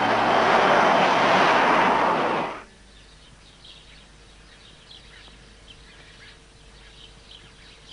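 Jet roar of two Sukhoi twin-engine fighters flying past, cutting off abruptly about two and a half seconds in. After it, a quiet outdoor background with small birds chirping.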